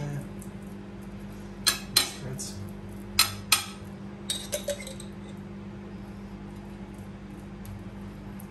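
Kitchenware clinking: two pairs of sharp clinks of glass or crockery and cutlery, then three lighter taps, over a steady low hum.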